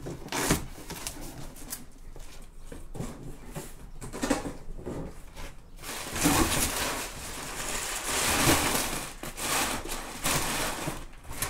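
Cardboard boxes being handled, then crumpled brown kraft packing paper rustling and crackling as it is pulled out of a box, busier and louder in the second half.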